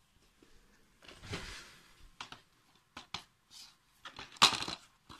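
Plastic DVD cases being handled and turned over: a short rustle, then several sharp clicks and knocks, the loudest about four and a half seconds in.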